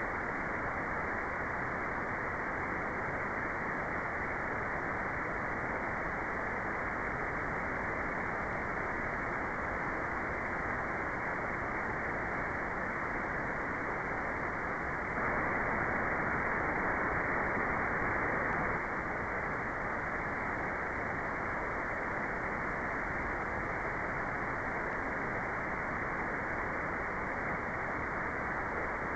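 Steady electronic white noise, an even hiss with the top end cut off so it sounds muffled. It grows a little louder for a few seconds around the middle.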